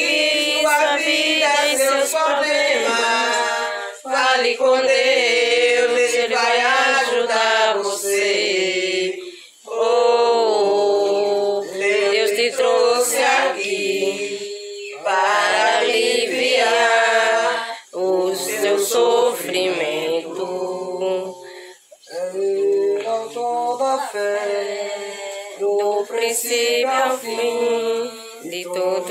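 A small mixed group of men and women singing a Portuguese-language Christian worship hymn together, unaccompanied, in phrases with short breaks between them.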